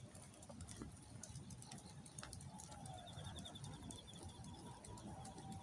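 Faint outdoor ambience with distant birds calling, including a short rapid high trill about three seconds in, over a low rumble.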